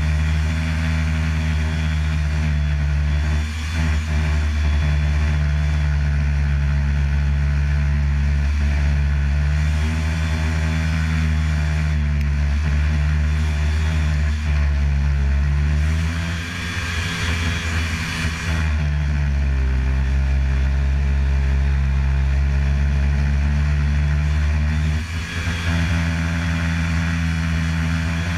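Snowmobile engine running steadily at cruising speed over a constant hiss; about two-thirds of the way through, the engine note drops briefly, then picks up again.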